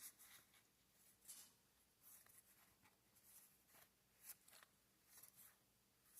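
Faint, soft rustles and flicks of trading cards being slid and turned over in the hand, a dozen or so brief scrapes spread irregularly through an otherwise near-silent room.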